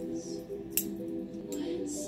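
Background music, over a few sharp metallic clicks from a balisong's handles being flipped, the loudest about three quarters of a second in.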